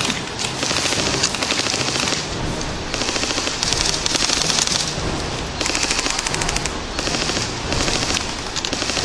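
Airsoft electric guns firing repeated rapid full-auto bursts: long strings of fast clicks, one burst after another with short gaps between.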